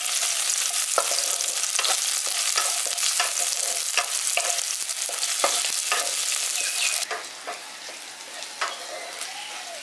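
Chopped garlic, ginger and green chilli sizzling in a little hot oil in a kadai, stirred, with frequent sharp scrapes and taps of the spatula against the pan. The sizzle drops off suddenly about seven seconds in, leaving a quieter sizzle and a few scrapes.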